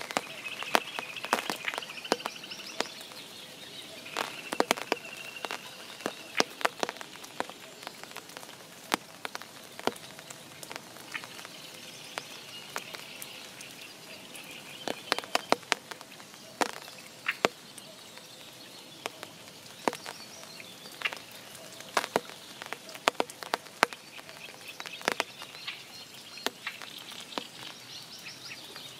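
Spring rain on a forest pond: drops tapping irregularly and sharply over a soft steady patter, with trilling calls in the background that come and go.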